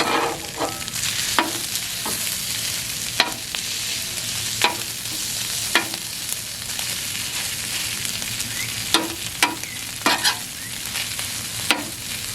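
Ground beef, bell peppers and onions sizzling on a Blackstone flat-top griddle, with a steady frying hiss. A metal spatula scrapes and clacks against the steel cooktop about ten times at irregular intervals as the food is stirred.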